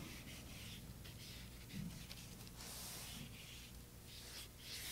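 Faint brushing: a flat watercolor brush drawing wet cobalt blue across textured Arches 140 lb watercolor paper, a few soft scratchy strokes, the clearest a little past halfway.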